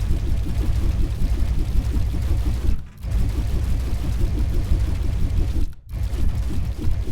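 Rapid, continuous typing on a membrane keyboard: a dense run of soft, thuddy keystrokes, with two brief pauses, about three and six seconds in.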